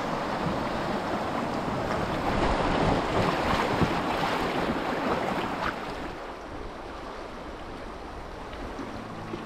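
Rushing river water with wind buffeting the microphone as a canoe travels down a fast river. The sound swells to its loudest in the middle, then eases off.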